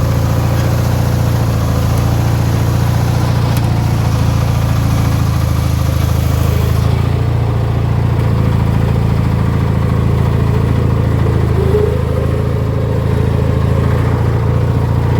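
18 hp Briggs & Stratton twin-cylinder engine of a modified Craftsman riding mower running steadily.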